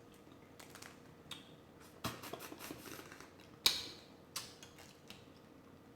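Close-miked eating of a seafood boil: scattered small clicks, crackles and wet mouth sounds of shellfish being handled and chewed, with one louder sharp crack a little past halfway.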